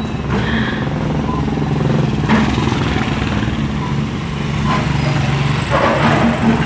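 An engine running steadily with a low hum, with two brief louder noises about two seconds in and near the end.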